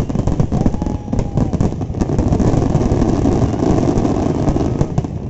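Fireworks going off in a rapid barrage of bangs and crackles. The crackle grows dense and continuous from about two seconds in and eases off near the end.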